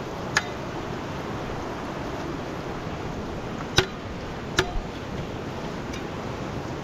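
Steady rush of a fast-flowing river, with a few sharp clicks or knocks on top: one shortly after the start, then one near the middle and a quick pair just after it.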